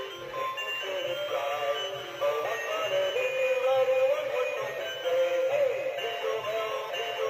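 NB Toys animated Dancing Santa figure playing its built-in song: a synthetic-sounding voice singing a Christmas tune over music.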